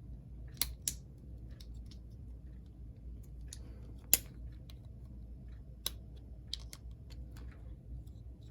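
Small sharp clicks of plastic parts being handled and snapped together as a cover is fitted back onto a vintage AHM diesel switcher model locomotive: about half a dozen scattered clicks, the loudest about four seconds in, over a faint low hum.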